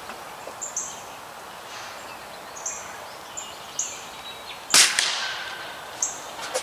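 A single shot from a .22 calibre Gamo Magnum break-barrel air rifle, one sharp crack about two-thirds of the way through. Small birds chirp briefly now and then.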